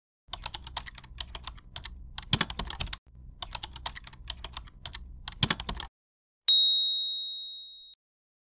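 Typing sound effect: rapid keystroke clicks for about five and a half seconds, with a brief pause in the middle and two louder strikes. Then a single bright ding that rings and fades over about a second and a half.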